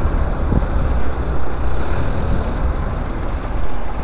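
Steady low rumble and road noise of a vehicle in motion.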